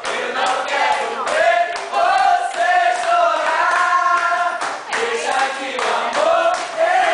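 A group of people singing together loudly, with hand claps through it.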